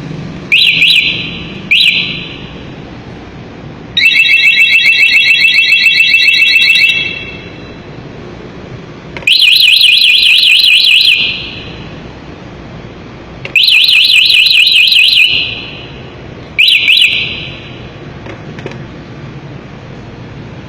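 Rusi Swish 110 scooter's anti-theft alarm running through its siren tones in separate loud bursts. It gives two short warbling chirps, a rapid multi-tone trill lasting about three seconds, two warbling sweeps of about two seconds each, and a last short chirp near the end.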